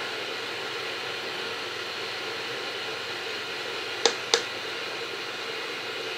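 Budget LCD projector's cooling fan running with a steady whirring hiss. Two sharp clicks come about four seconds in, a quarter second apart.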